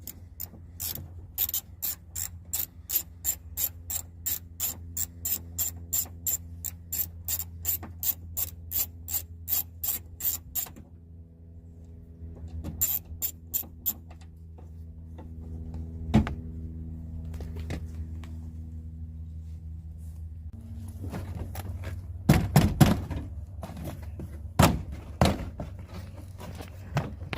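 Ratchet driving a T20 Torx bit, clicking about three times a second as it backs out a door-handle screw, stopping, then a short second run of clicks. Later a single knock and a few louder knocks and rattles near the end.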